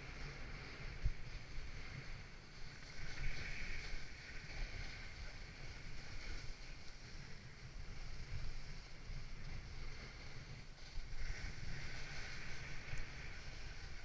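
Wind buffeting the microphone over the hiss of a ride sliding fast down a snow slope, the hiss swelling twice as speed picks up.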